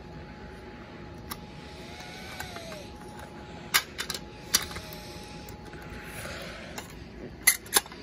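Sharp plastic clicks and clacks from fire alarm manual pull stations being handled, a few at irregular intervals, with two louder clicks close together near the end.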